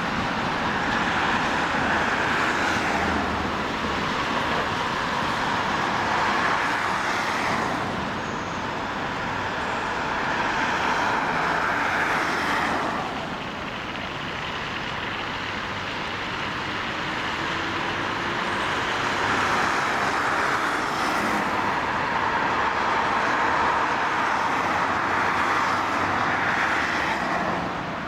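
A ChME3 shunting diesel locomotive's six-cylinder ČKD diesel engine running under power, a loud roar that swells and eases several times.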